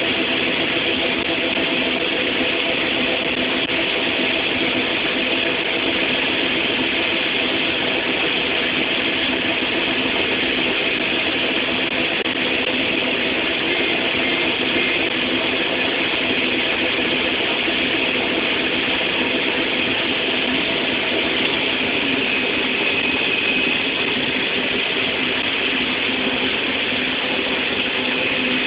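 Farm harvest machinery's diesel engine running steadily under a constant mechanical hum and hiss, with no change in speed.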